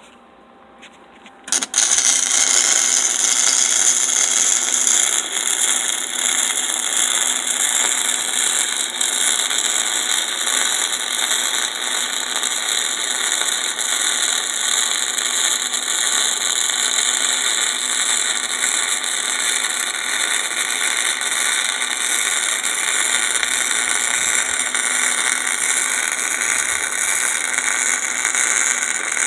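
Flux-core wire welding arc from a Lincoln SP135 wire-feed welder running a bead on a steel T-joint: a loud, steady crackling hiss that strikes up about a second and a half in and keeps going.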